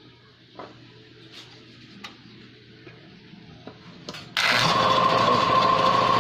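A few faint clicks and taps, then a little over four seconds in the air compressor starts abruptly and runs loud and steady with a high hum. Its motor is being started by a timer relay fitted in place of its failed centrifugal switch.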